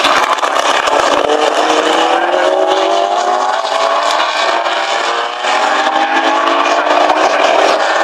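Engines of several racing cars accelerating out of a corner. Overlapping engine notes rise in pitch over a few seconds, with a short dip about five seconds in before they climb again.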